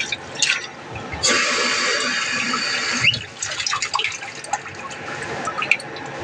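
Kitchen sink tap running for about two seconds, starting about a second in, with short clinks and knocks of dishes being hand-washed around it.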